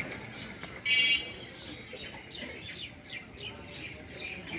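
Birds chirping, with one loud short call about a second in followed by a run of quick high chirps.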